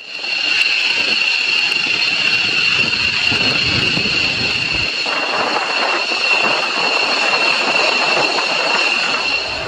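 Fighter jets' turbofan engines running at the airfield: a steady high whine over a rushing jet roar, the roar filling out about halfway through.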